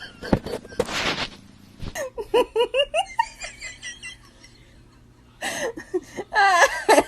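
Laughter in short bursts: a run of quick laughs about two seconds in, then a louder burst of laughing near the end. A sharp knock and a brief rushing noise come in the first second.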